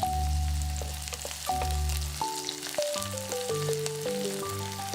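Chopped onion sizzling and crackling in hot olive oil in a frying pan, under background music of a simple melody with held notes.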